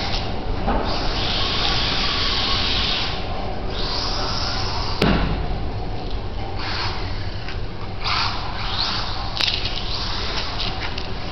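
Losi Micro Desert Truck with a brushless motor running across a concrete floor in short bursts of throttle, its motor and gears whirring and coming and going. A sharp knock comes about five seconds in, and a short click near the end.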